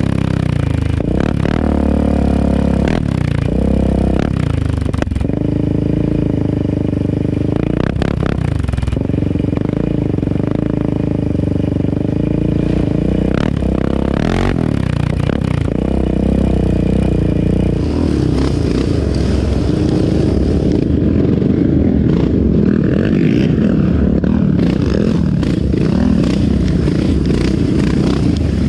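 Yamaha Raptor 700R ATV's single-cylinder engine, fitted with an aftermarket exhaust, revving up and falling back again and again through throttle and gear changes on a trail ride, over the noise of tyres on dirt; after about 18 s it runs steadier and rougher.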